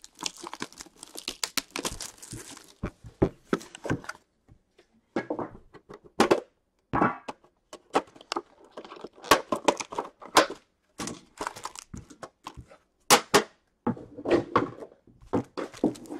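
Plastic wrap crinkling and tearing and a metal trading-card tin being handled and opened: irregular crinkles, taps and thunks with short pauses between them.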